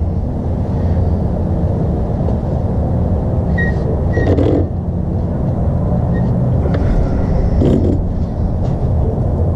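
Steady low machine rumble, with a couple of faint short squeaks about three and a half seconds in and soft knocks about four and a half and nearly eight seconds in.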